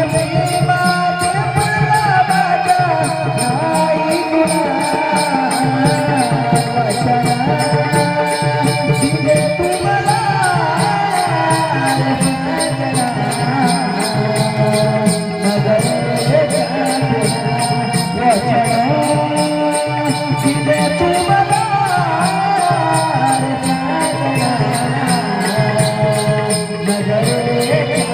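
Folk music: a wavering melodic line over a steady, regular percussion beat.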